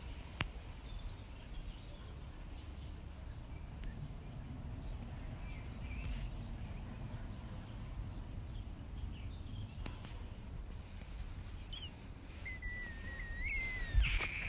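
Garden ambience: scattered faint bird chirps, with a clearer bird whistle that slides up in pitch near the end, over a low rumble on the microphone. A knock near the end is the loudest sound.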